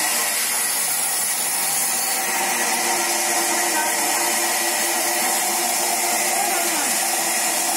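A large vertical band saw running steadily with its blade cutting into a big log, a constant loud whir with a few steady tones in it.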